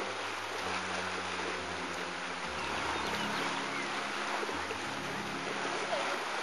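Steady churning hiss of a geothermal pool, water and gas stirring with steam.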